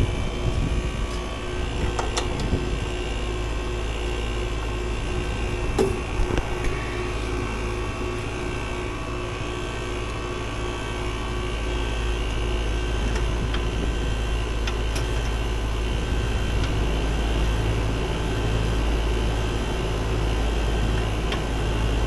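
Concord outdoor air-conditioning condensing unit running steadily, its compressor low on refrigerant, probably near empty. A few light knocks from the refrigerant lines being handled, about two and six seconds in.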